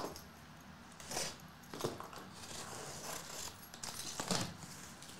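A few brief soft rustles and clicks of objects being handled, about four, spread through a quiet background.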